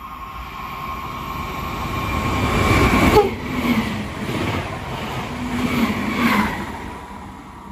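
Trenitalia Hitachi Rock (ETR 521) double-deck electric train passing through the station at speed. Its whine and rumble build as it approaches, and the pitch drops suddenly as the front passes about three seconds in. Wheel-on-rail rumble with a run of repeated beats follows as the cars go by, then fades near the end.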